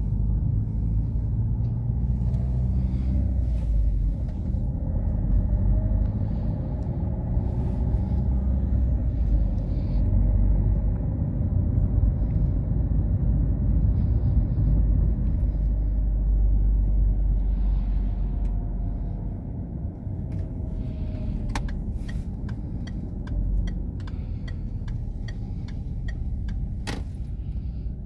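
Low rumble of a car driving, engine and tyre noise heard inside the cabin, easing off about two-thirds of the way through. A few sharp clicks near the end.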